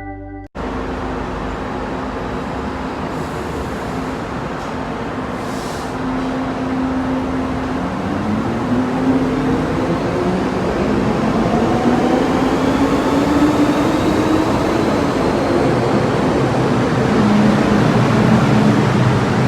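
MTR M-Train electric multiple unit running, a steady rumble with the traction motors' whine rising in pitch from about eight seconds in as the train speeds up.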